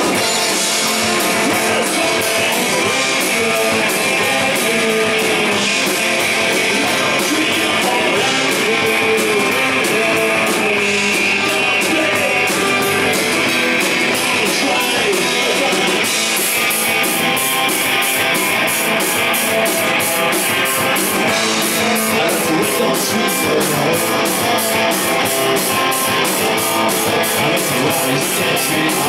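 Live rock band playing: amplified electric guitars over a drum kit, with a steady cymbal beat that comes through more clearly in the second half.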